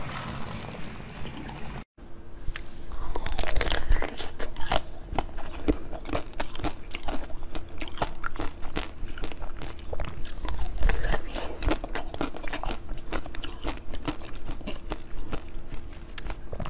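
Close-miked eating: crisp crunching bites and chewing of a pink, seed-coated fruit-shaped treat, a dense run of sharp crackles over a faint steady hum. The first two seconds hold softer mouth sounds on a jelly lollipop.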